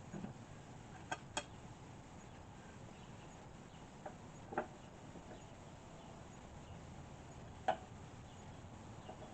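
A few separate light clinks and knocks of metal parts being handled, a mower blade and washer being tried on the shaft, over a faint steady background; the loudest knock comes near the end.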